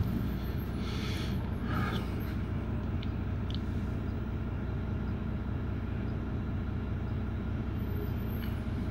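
Double-decker bus engine running steadily in slow traffic, heard from inside on the upper deck, with a brief hiss about a second in.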